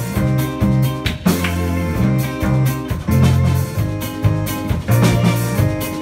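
Live band playing loudly: drum kit and cymbals keeping a steady beat under bass guitar, electric guitar and keyboard.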